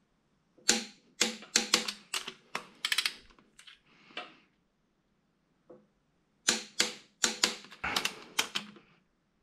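Click-type torque wrench clicking again and again as the 2JZ's main bearing cap bolts are brought up to their final 60 ft-lb. The sharp clicks come in quick succession in two runs, with a pause of about two seconds in the middle.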